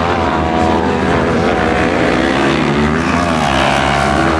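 Several 500-class kart cross cars running on a dirt track, their motorcycle engines revving hard with overlapping pitches that rise and fall as the cars accelerate and lift off.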